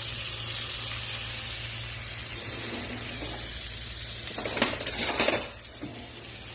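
Chicken pieces frying in hot oil in a pan, a steady sizzle. About four seconds in, a second or so of metal clattering against the pan, after which the sizzle is quieter.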